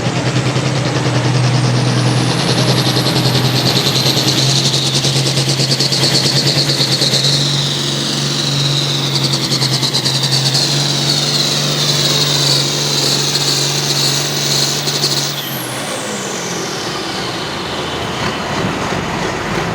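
An altered pulling tractor's engine running hard under full load, with a high whine that climbs in pitch over the first few seconds and then holds. About three quarters of the way through, the engine drops off and the whine falls away in a long downward glide as the pull ends.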